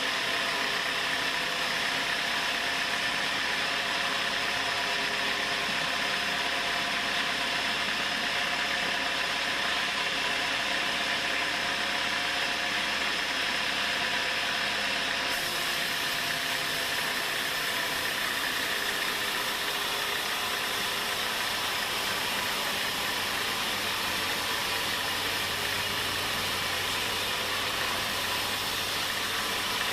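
Sawmill machinery running steadily under a constant engine-like hum, as a log is sawn into boards. The sound changes abruptly about halfway through.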